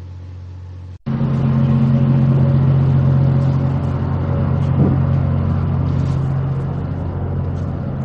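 Tugboat engines running steadily with a low hum, mixed with wind noise on the microphone. The sound cuts in abruptly about a second in, after a quieter low hum and a brief dropout.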